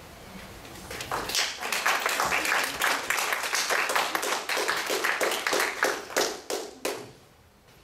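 Audience clapping at the end of a poem. The clapping starts about a second in and dies away about a second before the end.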